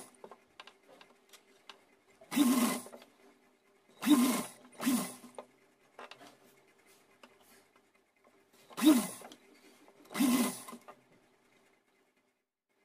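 Domestic sewing machine stitching in five short spurts of about half a second each, the pitch of each spurt rising and falling, as a net frill is tacked in place. Faint ticks of the fabric being handled come between the spurts.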